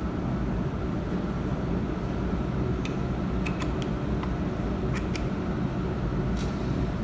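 Steady low mechanical hum of running machinery, like a fan or cooling unit, with a handful of light clicks from about three to five seconds in and once more near the end as the metal parts of a laser welding head's optics mount are handled.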